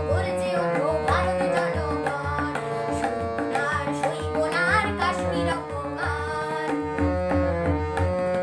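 A girl singing a Bengali patriotic song to harmonium and tabla: the harmonium holds steady notes under the voice while the tabla keeps a steady rhythm.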